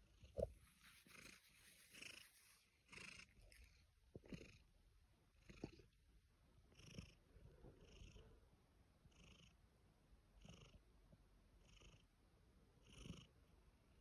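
Grey domestic cat purring faintly, in soft even pulses a little faster than once a second. A few brief low thumps, the loudest about half a second in.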